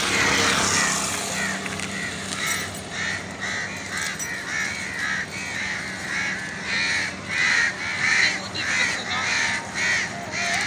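Crow cawing over and over in a quick run of short caws, two or three a second, getting louder about seven seconds in.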